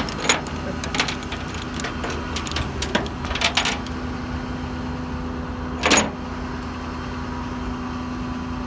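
Irregular metallic clicks and clacks from tie-down strap hardware as a motorcycle is strapped to a flatbed tow truck's steel deck. A louder clack comes about six seconds in. Underneath, an engine idles with a steady hum.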